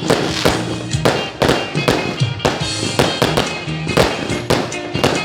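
Fireworks going off in quick succession, sharp bangs and crackles about two a second, over background music.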